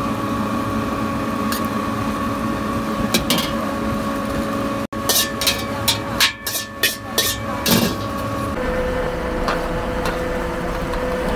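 Metal cookware clanking on a carbon-steel wok over the steady noise of a gas wok burner: a quick run of sharp metal knocks and clangs from the wok and spatula, about halfway through, is the loudest part. Spatula scraping in the wok comes before it.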